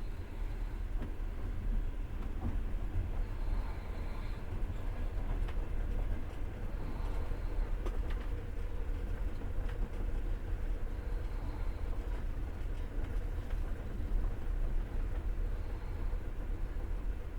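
Passenger train running along the track, heard from inside the carriage: a steady low rumble of wheels on rails, with a few faint clicks in the middle.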